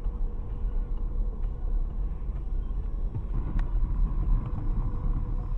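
Steady low rumble of a car driving, heard from inside the cabin through a dashcam's microphone.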